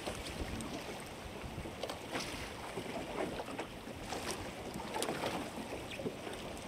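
Choppy water slapping against the hull of a small drifting boat, with wind on the microphone and a few light knocks scattered through.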